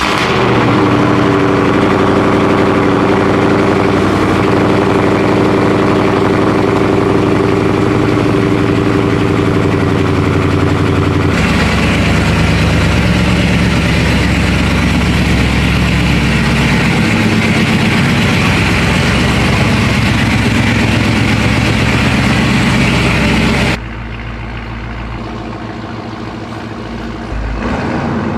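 2021 Dodge Charger Scat Pack's 6.4-litre HEMI V8 idling through long-tube headers, high-flow cats and deleted mid-pipe resonators. It runs steadily and loud, its tone changes abruptly about eleven seconds in, and it drops somewhat quieter about two thirds of the way through.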